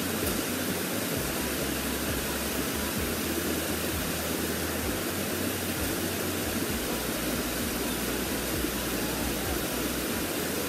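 Waterfall cascading over rocks into a pool: a steady, unbroken rushing of water.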